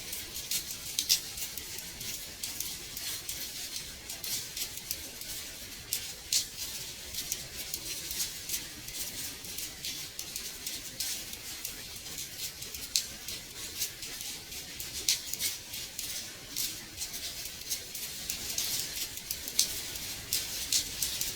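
Gentle rain on a window: a steady hiss of falling rain with many light, irregular taps of drops striking the glass.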